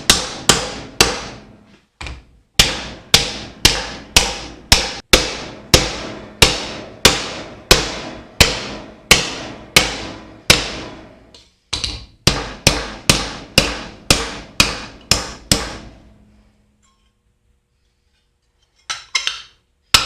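Hammer blows on a thin aluminium sheet, about two strikes a second, each with a short metallic ring. They pause briefly twice, stop about three-quarters of the way through, and start again just before the end.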